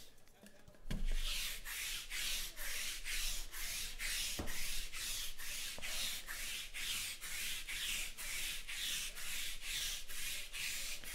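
Trading cards sliding against each other as they are flipped through one after another, a dry swish about three times a second. It starts with a soft knock about a second in.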